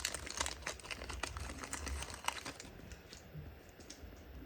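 Crinkling and rustling of a trading-card pack's foil wrapper as the pack is handled and the cards come out: dense crackling for the first couple of seconds, then sparser and quieter.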